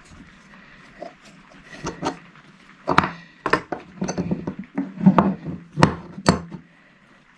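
Steel adjustable wrench, hex bolt and nut handled and knocked against each other and the wooden workbench: a string of sharp metallic clinks and knocks, starting about a second in and stopping shortly before the end.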